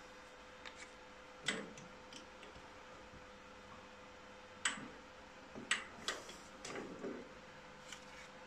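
A few separate light clicks and knocks of hands handling the workpiece and chuck of a stopped metal lathe, over a faint steady hum.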